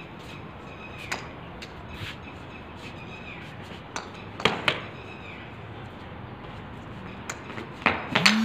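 A small hard ball bouncing and knocking on a tiled floor and wall, a few sharp knocks at irregular intervals, the loudest a quick pair about four and a half seconds in and another pair near the end.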